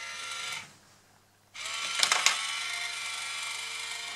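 Small geared electric motor of an Itazura cat coin bank whirring: a short run, a pause of about a second, then it starts again about a second and a half in with a couple of clicks and keeps running steadily as the mechanism works.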